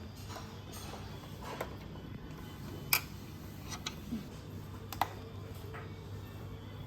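A few scattered sharp clicks and knocks, like hard objects being handled, the loudest about three seconds and five seconds in, over a steady low hum.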